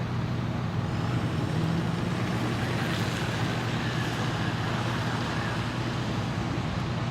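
A heavy engine running steadily with a low hum, under a constant rumbling noise.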